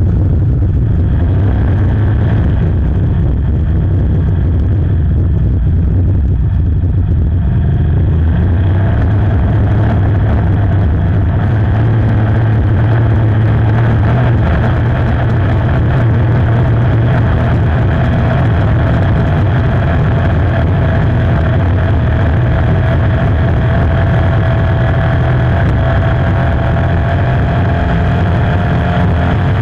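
5.0-litre inboard hydroplane's V8 engine running steadily, heard from the cockpit, its pitch creeping slowly upward through the second half.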